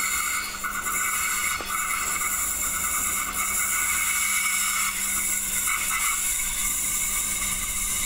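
Adelaide Metro 3000-series diesel railcar approaching from a distance, a steady hiss with several held high-pitched tones.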